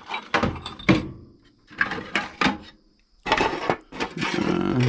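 Metal hand tools and sockets clinking and rattling against one another and the steel drawer of an old toolbox as they are picked through, in three clattering bursts.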